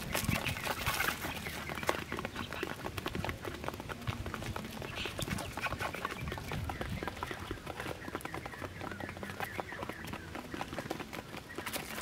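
Quail pecking and scratching on a cardboard floor: a quick, irregular run of small taps and rustles.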